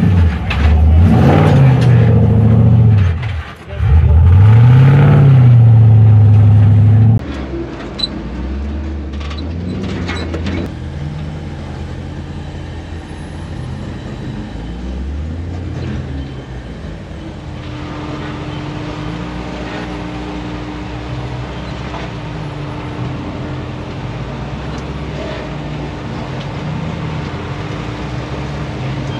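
An off-road truck's engine revving hard under load, the revs rising and falling, with a brief drop partway through, as it works over a trail obstacle. About seven seconds in it cuts off suddenly to a much quieter engine running at low revs, with occasional knocks and later a faint steady hum.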